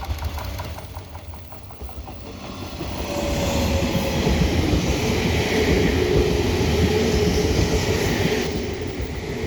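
JR 485-series electric multiple unit passing at close range: its rolling noise swells about three seconds in and stays loud, with a faint steady whine over the rumble.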